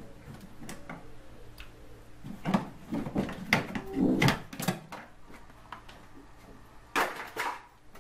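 Plastic clicks, knocks and rattles as the plastic wiring cover in a Renault Mégane's windscreen cowl is handled and pried loose: a cluster of knocks in the middle and a short rattle near the end.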